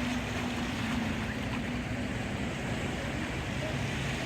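Waves washing against the rocks of a harbor shoreline, with wind on the microphone, as a steady wash of noise. A low steady hum fades out about halfway through, and a fainter, lower hum comes in near the end.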